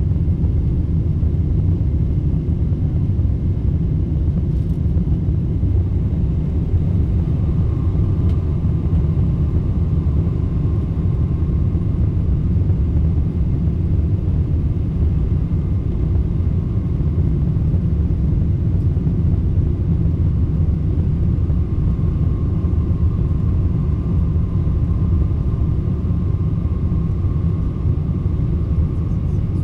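Steady low rumble of a Boeing 747-400's four turbofan engines and airflow, heard inside the passenger cabin during the climb after takeoff. A faint high whine comes in twice, once about a third of the way through and again near the end.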